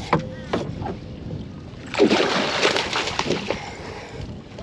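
A hooked shark splashing and thrashing in the water beside the boat, with a loud burst of splashing about two seconds in that lasts about a second and a half, after a few knocks.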